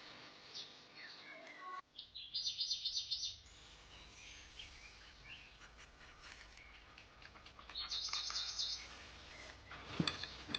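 Birds chirping, with two short, rapid, high-pitched trills, one about two seconds in and one about eight seconds in. A single sharp knock near the end.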